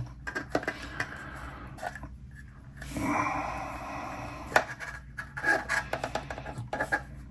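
Small plastic model-kit parts clicking and scraping as they are handled and pressed together during gluing. There is a soft rushing sound about three seconds in that lasts about a second.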